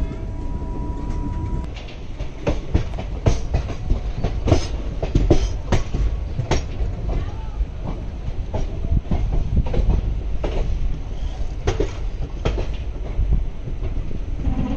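Tapovan Express passenger coach running along the track: a steady low rumble with irregular clattering knocks as the wheels cross rail joints and points. A thin steady tone sounds during the first couple of seconds.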